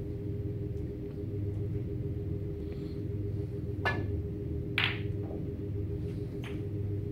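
Snooker shot over a steady low room hum: two sharp clicks about a second apart, as the cue strikes the cue ball and the cue ball hits another ball, followed by a fainter knock about a second and a half later.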